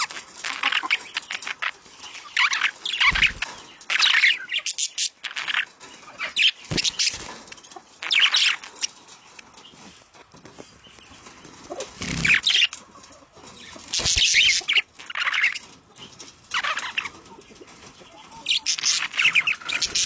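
Show-type budgerigars calling in bursts of chattering and chirping, several bursts every few seconds with short pauses between.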